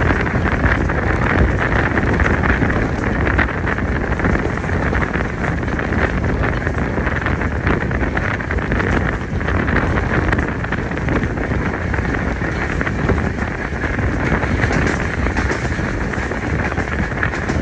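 Moving passenger train running at speed: a steady rumble with heavy wind rushing over the microphone.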